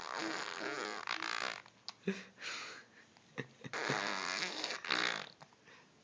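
A person making silly raspy, breathy noises with the mouth and throat, in the manner of snoring or blowing raspberries. There is one long stretch at the start, a short burst about two seconds in, and another long stretch just before the end.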